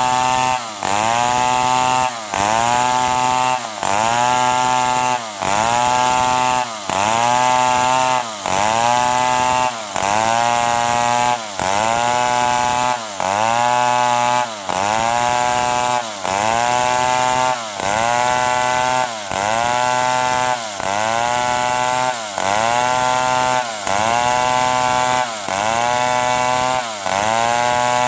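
Stihl 070 two-stroke chainsaw making short cuts through wood in a steady rhythm: the engine's pitch sags as the chain bites and climbs back as it comes free, with a brief dip in loudness between cuts, a little under two seconds apart.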